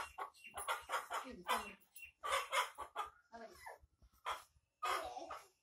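A hen squawking in short repeated calls as it is held and handled, several a second at first and sparser later.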